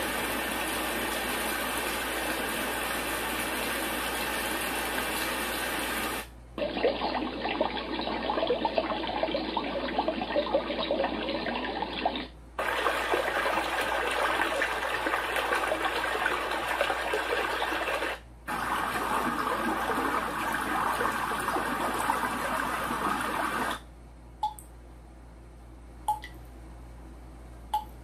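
Renpho white noise sleep machine playing four of its soothing sound presets in turn through its speaker, each a steady water-like rushing noise about six seconds long with a short break between; the second is duller and full of sharp crackles. It stops near the end, and three faint clicks follow.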